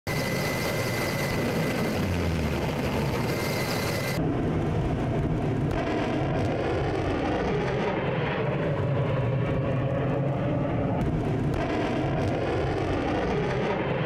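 Steady engine roar like an aircraft in flight, mixed with rushing air noise. About four seconds in it changes abruptly from a hissy roar with a thin, steady high whistle to a lower, wavering roar.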